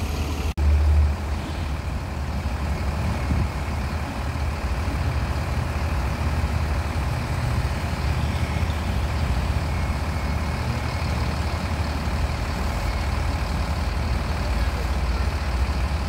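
Mercedes-Benz coach's diesel engine idling close by: a steady, heavy low rumble.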